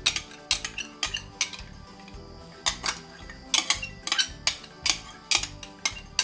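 Metal spoon clinking against a glass bowl again and again as thick oyster sauce is scraped out into a wok, sharp clinks in uneven clusters.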